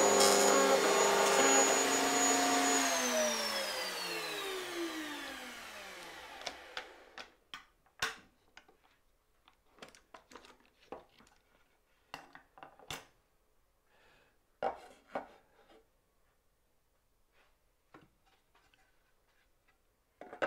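Router in a router table running with its dovetail bit. It is switched off about three seconds in, and its whine falls in pitch and fades as the motor spins down over about four seconds. Then come scattered knocks and clicks as the dovetail jig's clamps are released and the boards are handled.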